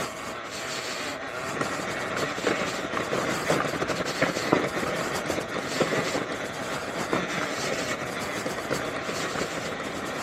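Talaria Sting R electric dirt bike riding over a rough, rocky trail: tyres crunching and scraping over stones and gravel, with frequent short knocks and rattles, and no engine note.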